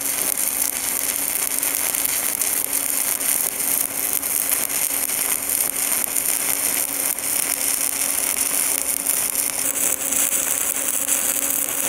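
Stick (SMAW) welding arc from a 1/8-inch 7018 electrode at 100 amps laying a cap-pass bead on carbon steel pipe: loud, steady crackling, with a steady low hum beneath it.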